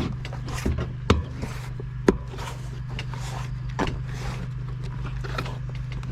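A stiff Continental Kryptotal downhill-casing tire being worked onto a bicycle rim by hand: scattered short knocks and rubbing of rubber against the rim, over a steady low hum.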